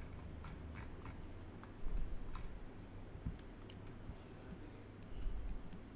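Scattered light clicks from someone working a computer at a desk, over a low steady hum, with a couple of soft thumps about two seconds in and again past five seconds.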